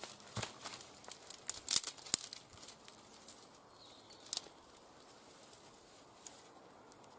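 Dry feather sticks and kindling being handled: a quick run of sharp cracks and crackles over the first three seconds, loudest a little before the two-second mark, then a few isolated clicks.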